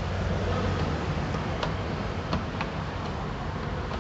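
A few light, sharp clicks and ticks over a steady low background rumble.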